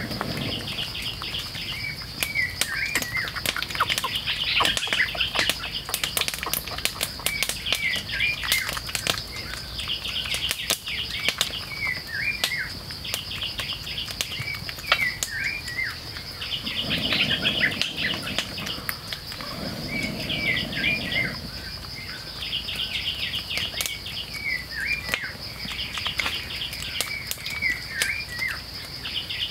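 Forest ambience: a bird repeats a short chirping song phrase about every two seconds over a steady high insect drone, with scattered sharp clicks throughout. Two brief lower sounds come about two thirds of the way in.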